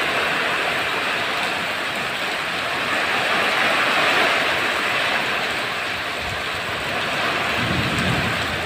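Heavy rain pouring down in strong wind, a loud steady hiss. A low rumble swells near the end.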